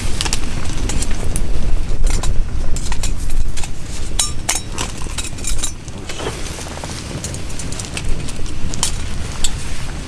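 Twigs burning in a small tin-can wood stove, crackling with irregular sharp pops over a steady low rumble.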